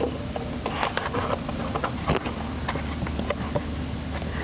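Paper cup crinkling and scraping in many short, irregular clicks as it is pushed and wedged into place among engine hoses, over a steady low hum.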